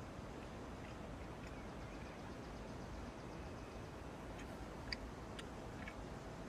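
Faint steady low hum with a few soft clicks a little past the middle: a person chewing a mouthful of Big Mac.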